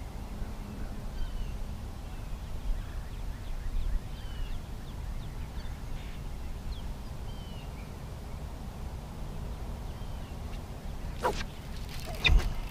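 Scattered faint bird chirps over a low steady rumble of wind and water. Near the end, two sudden sharp sounds, the second the loudest, as a fishing rod is swept back hard to set the hook.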